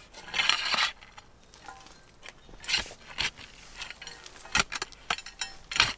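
Woody mulch compost being dug and tossed aside: a run of short, coarse scrapes and rustles, the longest about half a second in and several more in the second half.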